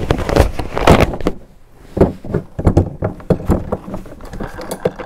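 A Mid-West 835 backflow test gauge being seated back into its hard plastic case: a string of irregular knocks and clicks as the gauge and its metal mounting clips go into the case, with a short lull about one and a half seconds in.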